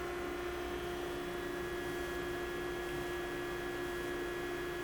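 Okamoto CNC surface grinder running with its grinding spindle at about 1800 RPM: a steady hum with one clear tone, very quiet for such a machine.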